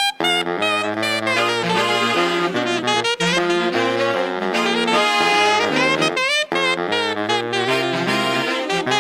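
Instrumental background music with a wavering lead melody over a low bass line, pausing briefly between phrases.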